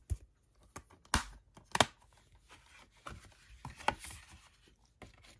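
Sharp plastic clicks and knocks from a 4K Blu-ray keep case being handled: three crisp clicks in the first two seconds, softer taps about three to four seconds in, then light rustling.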